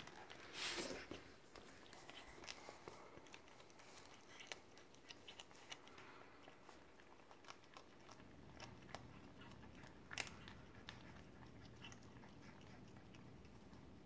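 Kitten chewing and crunching a small bird: faint, irregular little crunches and clicks. A brief louder rustle comes under a second in, and a sharper crack about ten seconds in.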